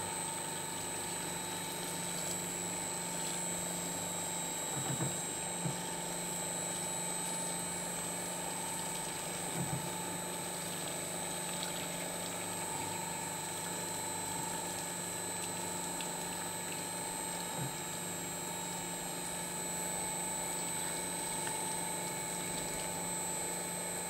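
Paper shredder motor running steadily with its cutters turning while hot water is poured through them, washing out sticky goo. Now and then there is a faint knock.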